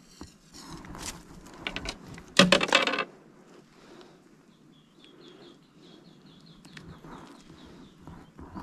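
A small fish being unhooked and handled in gloved hands over a wooden boat deck: light knocks and rustles, with one louder rasping noise about two and a half seconds in. A bird chirps a quick run of short high notes around five seconds in.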